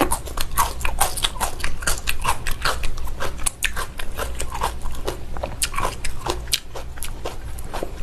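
Close-miked chewing of raw salmon sashimi with salad greens: a steady stream of mouth clicks and smacks, several a second.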